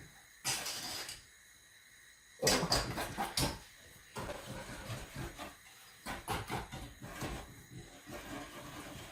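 Hand whisk beating eggs and sugar in a bowl over a bain-marie, an irregular clatter and scrape of the wire against the bowl. A loudest run of strokes comes about two and a half seconds in.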